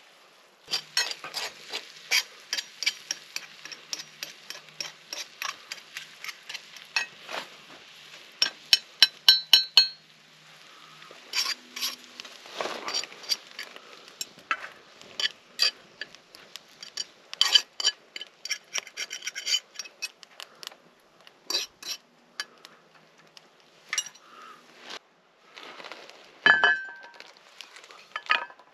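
Metal utensils clinking and scraping against metal cookware: a quick run of light, fairly regular clinks, then a few loud ringing strikes, then scattered clinks.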